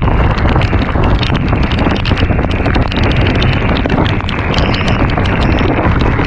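Loud, steady wind rush buffeting the microphone of a camera on a moving scooter riding through heavy rain. Many small ticks of rain striking the camera run through it.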